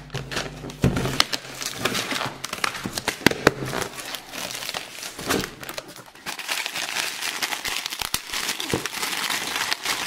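Crinkly red plastic wrapper of a blind-bag toy package being handled and squeezed: continuous crinkling with many small sharp crackles, along with cardboard box handling.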